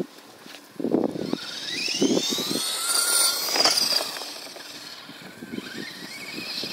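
Traxxas LaTrax SST 1/18-scale RC stadium truck's electric motor whining, its pitch rising as the truck accelerates from about a second in to nearly four seconds, then easing off and climbing again near the end. A few dull thumps come around one and two seconds in.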